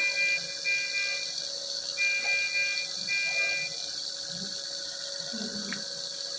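Medical monitor alarm: high-pitched electronic double beeps, two pairs about two seconds apart, over a steady hiss.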